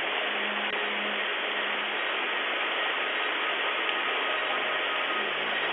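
Heavy rain pouring down, a loud, steady, dense hiss of rain striking the ground and the porch, heard through a doorbell camera's small, thin-sounding microphone.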